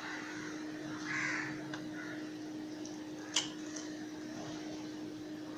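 A short bird call about a second in, over a steady low hum, with one sharp click about three and a half seconds in.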